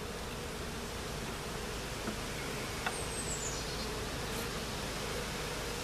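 Honeybees of an open hive buzzing steadily, a continuous hum, with a couple of faint clicks.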